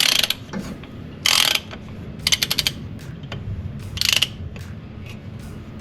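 Socket ratchet clicking in four short bursts, each a quick run of pawl clicks, as the wrench works the oil filter housing cap loose.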